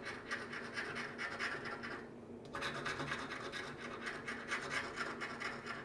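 Rapid back-and-forth scraping as the latex coating is scratched off a scratch-off lottery ticket lying on a wooden table, with a short pause about two seconds in before the scratching resumes.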